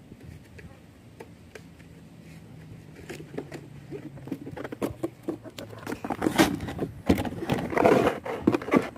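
Rustling, rubbing and tapping against the phone as it is handled and covered. The sound is sparse and faint at first, grows busier about three seconds in, and is loudest over the last few seconds.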